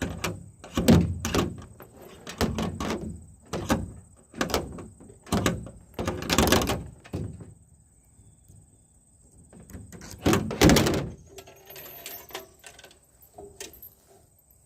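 A series of about a dozen sharp metallic knocks and clanks at an uneven pace, pausing for a few seconds in the middle, then a last pair of loud knocks and some lighter clicks: handcuffs being worked during a cuff escape.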